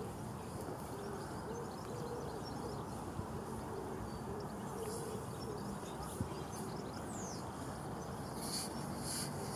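Steady outdoor background hiss with low, short bird calls repeating in the first half. Near the end come a few quick splashes at the surface: a hooked fish thrashing as it is drawn towards the landing net.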